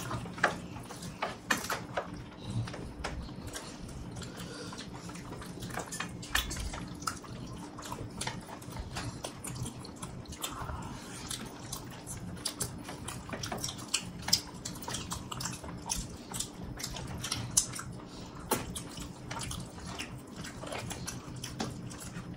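Close-up eating sounds of people chewing biryani with open mouths: irregular wet smacks and sticky mouth clicks, several a second, over a faint steady hum.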